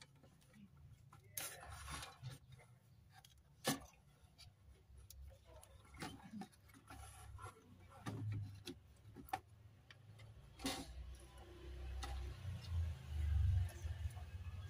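Scattered small clicks and taps from a soldering iron and a TV power-supply circuit board being handled while electrolytic capacitors are desoldered, with a louder low rumble of handling noise near the end as the board is set down.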